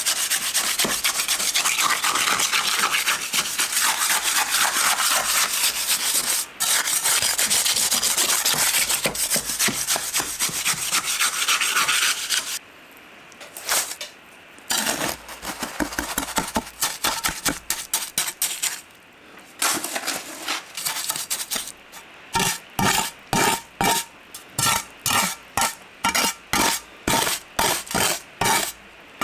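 Trowel working wet concrete in a wooden lintel form to drive out trapped air: a steady gritty scraping and rubbing that breaks up after about twelve seconds into separate strokes. Near the end come even, quick trowel strokes, about two a second, as the top is smoothed.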